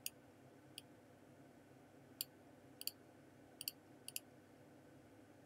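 Computer mouse button clicking: several sharp, short clicks at irregular intervals, some in quick pairs, over a faint steady hum.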